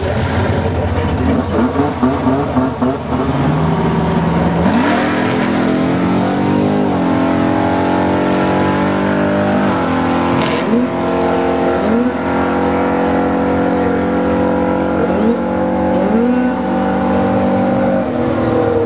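Ford Mustang drag car's engine revving at the start line. It is held at high revs in steady stretches that step up and down, with several short rising throttle blips in the second half and a sharp click about ten seconds in.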